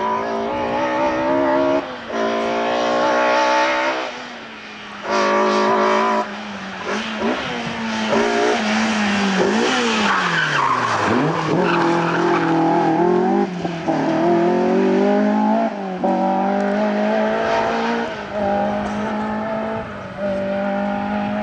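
Rally cars driven flat out on a tarmac stage, engines revving up through the gears with a sharp break at each shift. Around the middle one brakes hard: the engine note falls steeply through the downshifts while the tyres squeal, then it accelerates away again, shifting up several times.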